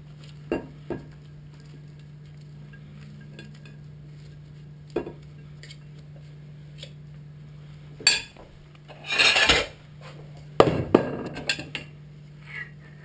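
Utensils clinking and scraping against a stainless steel mixing bowl as a salad is tossed and served onto a plate. There are scattered single clinks, a longer scrape about nine seconds in, then a quick cluster of knocks, over a steady low hum.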